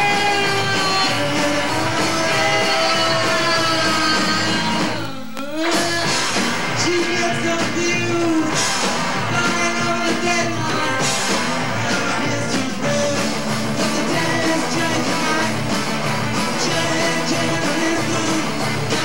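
Punk rock song: a singer over a full rock band, the music dropping out briefly about five seconds in before going on.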